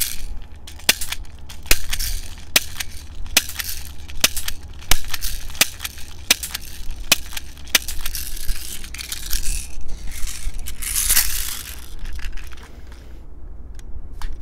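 Toystar Spy-R airsoft BB revolver fired shot after shot without recocking, a string of sharp snaps about one every 0.8 seconds. A burst of rustling follows near the end.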